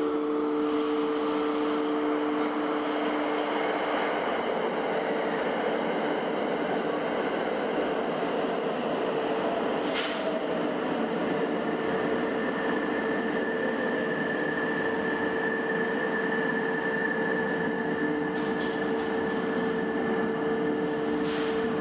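Limited express electric train rolling into a station platform and running past, its wheels and running gear making a steady rumble with a steady whine over it. A single sharp clack comes about ten seconds in.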